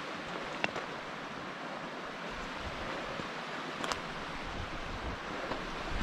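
Steady rushing of a mountain creek, with a couple of faint clicks.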